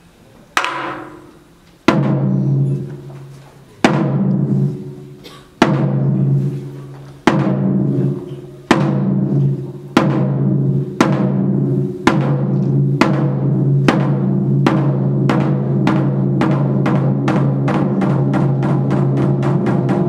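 Taiko drums struck with sticks: single ringing, deep booming strokes at first about two seconds apart, speeding up steadily until they run together into a fast roll near the end.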